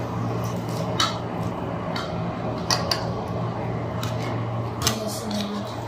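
Spoon clinking and scraping on a plate while eating, with a few sharp clinks, over a steady low hum.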